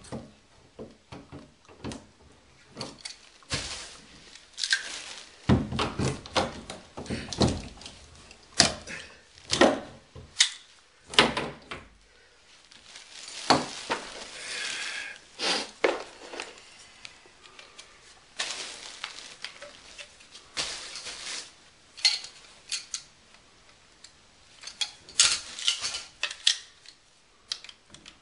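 Handling noise from PEX repiping work: plastic tubing knocking and scraping against wooden studs and drywall, and hand tools picked up and set down, in irregular clicks, knocks and rustling scrapes.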